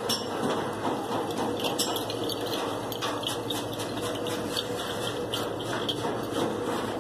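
Busy background noise with a faint steady hum and frequent small taps and clicks scattered throughout.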